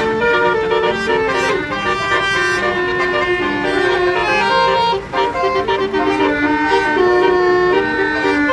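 Bus 'basuri' musical horn playing a tune: a string of held, reedy notes stepping up and down in pitch, with a short break about five seconds in.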